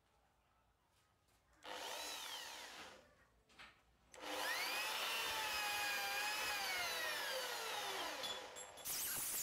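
Small homemade drill press drilling a steel bar, its electric drill motor running twice: a short burst about two seconds in, then a longer run from about four seconds whose whine climbs and then slowly falls as the bit cuts.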